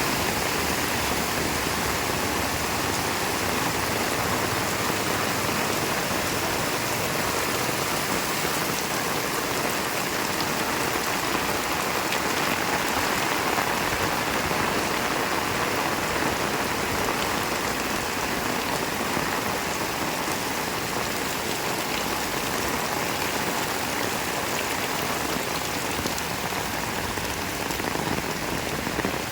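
Heavy rain falling steadily, a dense even hiss of drops hitting the ground and surfaces.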